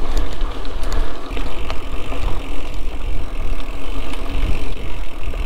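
Mountain bike ridden over forest singletrack, heard from the rider: a steady low rumble of tyres on dirt and air rushing past, with scattered clicks and rattles from the bike over roots.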